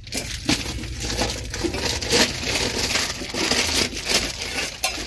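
Crinkling and rustling of something being handled close to the microphone, full of small irregular crackles, over a low rumble.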